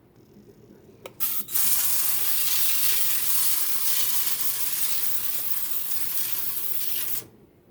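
Pump-action olive oil mister spraying a continuous fine hiss of oil for about six seconds, after a small click, cutting off sharply near the end.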